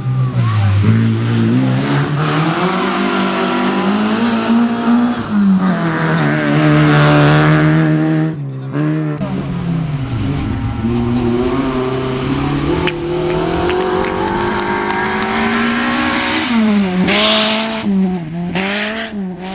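Rally car engine revving hard, its pitch climbing and falling again and again through gear changes and lifts. The engine drops off briefly about eight seconds in and then pulls again, with a few sharp pops near the end.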